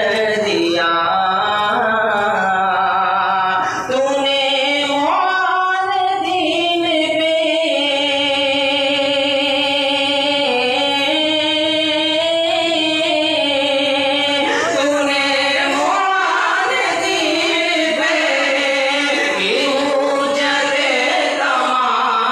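A voice singing a farewell tarana, an anthem-like song, with long held notes that waver and slide in pitch between phrases.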